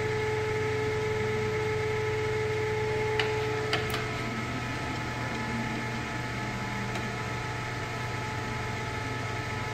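Vanguard CW61 engine lathe running with a steady hum and whine while its two-speed tailstock handwheel is cranked by hand. Two sharp clicks come a little past three seconds in, and one steady tone drops out around four seconds.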